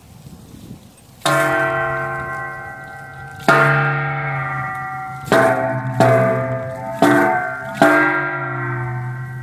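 A round metal plate struck with a handheld beater and left to ring, bell-like with many overtones that slowly fade. The first strike comes about a second in, then five more, the first two ringing out for about two seconds each, the later ones quicker.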